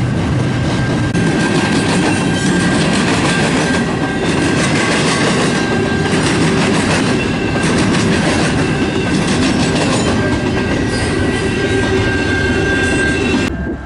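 Double-stack intermodal freight cars rolling past at a grade crossing: a steady heavy rumble with wheels clicking over the rail joints and a thin, steady high tone running through. It cuts off suddenly near the end.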